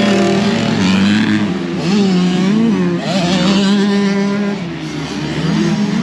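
Ford Econoline van's engine running on the road, its pitch rising and falling a few times over a steady road noise.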